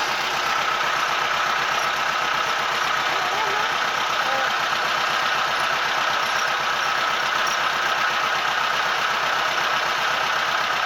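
Boat engine running steadily, an even drone with a steady whine above it.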